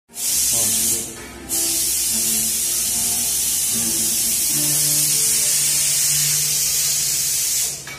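Loud, steady hiss that breaks off for a moment about a second in and cuts off just before the end, over soft background music.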